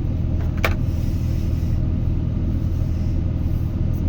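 Excavator's diesel engine running steadily at a low hum, with one sharp click a little over half a second in.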